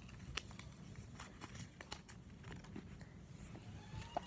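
Faint handling noise: scattered soft clicks and rustles as the phone is moved about.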